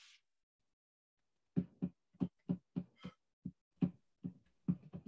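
About a dozen short, dull taps or knocks at an uneven pace, roughly three a second, starting about a second and a half in.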